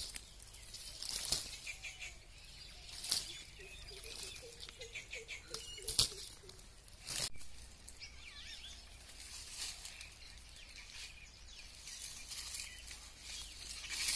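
Leaves and stems of a climbing passionflower vine rustling and snapping as hands reach through the foliage picking fruit, in short sharp brushes a few seconds apart.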